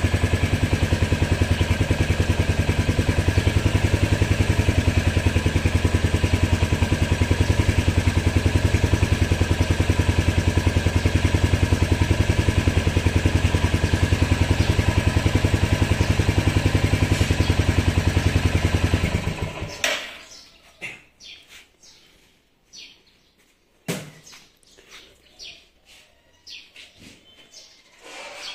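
Royal Enfield Hunter 350 single-cylinder engine idling with a steady, even beat, then cutting out abruptly about two-thirds of the way in: the engine is shut off by the GPS tracker's remote ignition lock, sent from a phone app. After it stops, only faint bird chirps and a sharp click remain.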